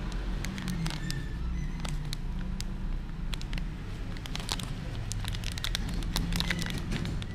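Plastic snack bag crinkling as hands turn and squeeze it: irregular sharp crackles, denser in the second half, over a steady low rumble.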